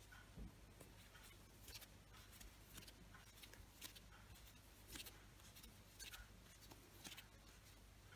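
Near silence: faint, irregular scratchy ticks of a crochet hook pulling yarn through single crochet stitches, roughly one a second, over a low steady hum.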